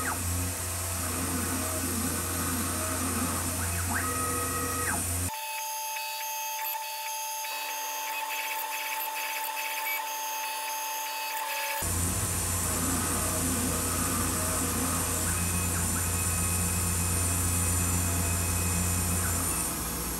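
Super Prolight 1000 CNC mill's spindle cutting aluminium with an end mill: a steady machining hum and whine. From about five to twelve seconds in, the sound turns thin and high while the footage runs at ten times speed, then the full machining sound returns.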